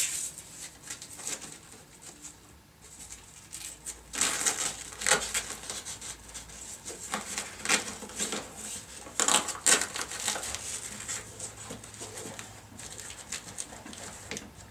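Stiff fabric-covered shelf panel being worked into a soft-sided bag: fabric rustling and scraping, with several rasping bursts of Velcro (hook-and-loop) strips catching and pulling, the loudest in the middle stretch.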